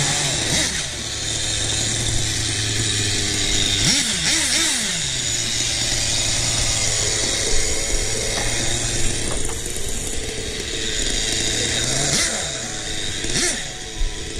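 Small glow-fuel (nitro) engine of a Kyosho Phantom 20EXP 4WD RC car, just started and idling steadily. It gets short throttle blips that rise and fall in pitch, twice about four seconds in and twice more near the end.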